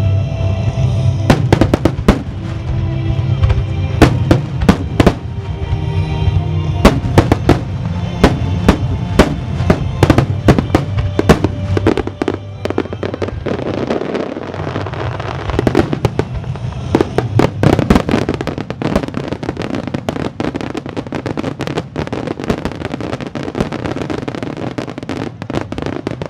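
Aerial fireworks shells bursting in a rapid series of sharp bangs that thicken into a dense barrage of bangs and crackles in the second half, over music from loudspeakers.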